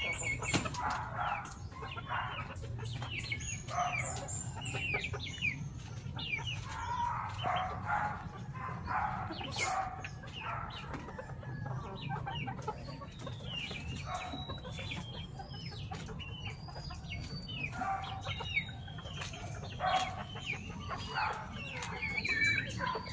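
Native chickens, Darag among them, clucking and calling many short times while they feed, over a steady low hum.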